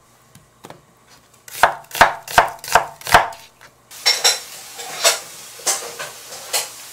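Chef's knife slicing an onion on a wooden cutting board. Five sharp knocks of the blade on the board come about two and a half a second, starting about a second and a half in. From about four seconds in, softer, sparser knocks sit over a steady hiss.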